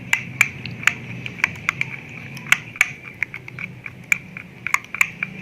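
Spoon stirring a thick mayonnaise-and-ketchup sauce in a bowl, with irregular light clicks of the spoon knocking against the bowl, a few a second, over soft squishing.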